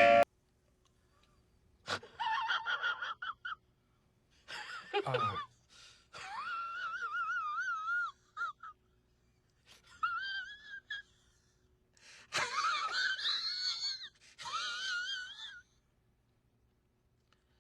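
High-pitched, wavering wailing and wheezing voice sounds in about six short bursts with near silence between them; one burst slides steeply down in pitch.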